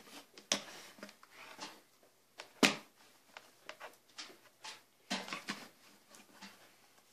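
Clicks and knocks of a Gigabyte M6900 gaming mouse being handled, lifted and set back down on a desk, the loudest a single sharp knock about two and a half seconds in, with a short scraping stretch around five seconds in.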